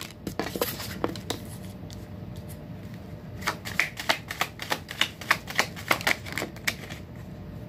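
Tarot cards being shuffled by hand: a few scattered card slaps at first, then a quick run of card snaps in the second half that stops near the end.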